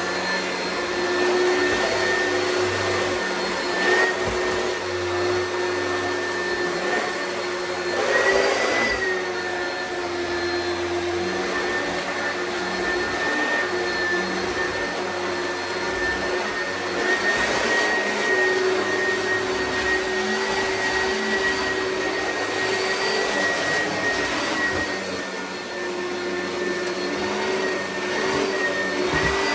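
Oreck upright vacuum cleaner running, a steady motor whine over rushing airflow, with brief swells and slight shifts in pitch as it is pushed over the floor.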